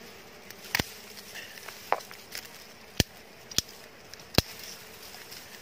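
A few sharp snapping clicks, about four loud ones spread over several seconds, as the comb of a wild dwarf honeybee nest is cut free. Faint steady buzzing of the bees underneath.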